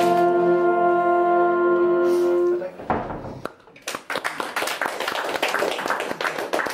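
The final chord of a sung folk song, held steadily and cut off about two and a half seconds in. After a short pause the audience breaks into applause.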